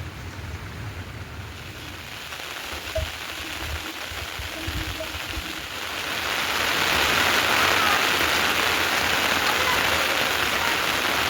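Heavy rain falling, growing louder about six seconds in and then pouring steadily.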